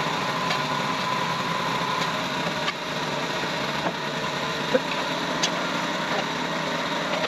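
Portable sawmill's engine running steadily at idle, with a few faint knocks about midway through.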